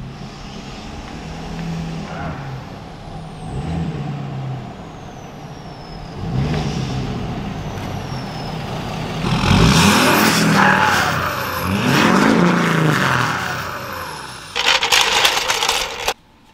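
Pickup truck engine accelerating through several rising pulls and passing close by, loudest about two-thirds of the way through, then a brief hiss near the end.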